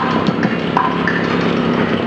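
Street drummer playing a fast, dense rhythm on a drum kit, with quick strokes and short ringing wood-block-like hits.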